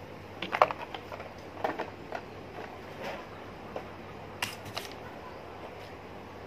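Scattered light clicks and taps of small objects being handled close to the microphone, with a cluster about half a second in, another near the two-second mark, and a last few just past four seconds.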